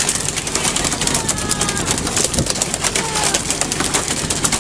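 Steady rushing noise of wind and sea on an open fishing-boat deck, with scattered knocks and a few short, high bird-like calls.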